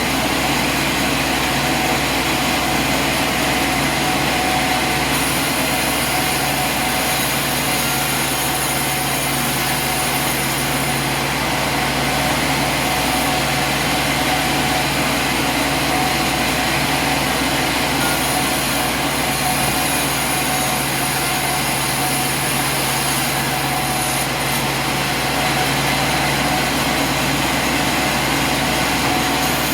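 Sawmill machinery running steadily with a constant mechanical hum and whine, unbroken throughout.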